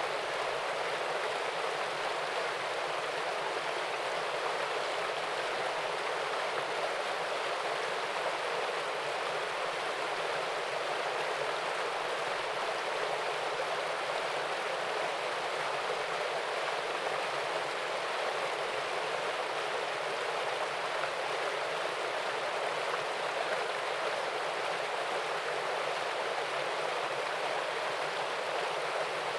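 Small waterfall spilling into a stream: a steady, even rush of water.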